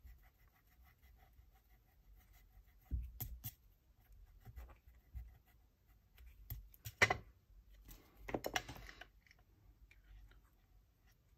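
Faint scratchy rubbing on paper in several short bouts, the loudest about seven seconds in and a longer one near nine seconds: a tool being rubbed over the journal page to lift leftover adhesive.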